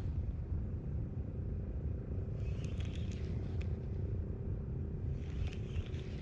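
A boat's engine running with a steady low rumble and a faint steady hum. Every three seconds or so there is a short burst of higher hiss and clicks.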